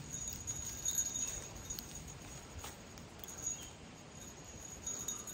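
Faint rustling and a few soft clicks of wet lake weeds being pulled off a fishing line and sinkers, over a steady thin high whine that rises and falls slightly in level.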